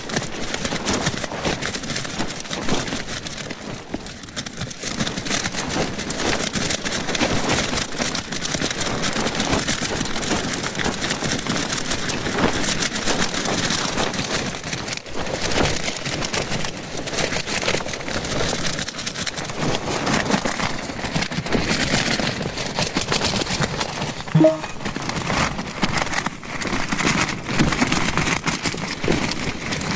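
Tent fabric of a Hilleberg Anaris flapping and snapping hard in extreme gusting wind, a constant crackling rattle that swells and eases with the gusts. There is one brief higher sound about three quarters of the way through.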